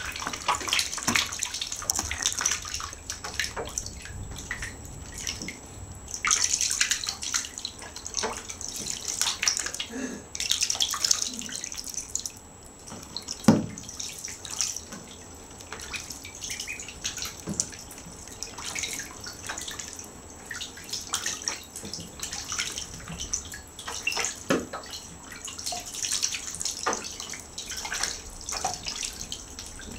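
Ducklings splashing and paddling in shallow bathtub water: a string of irregular small splashes and drips, with one sharp knock about halfway through.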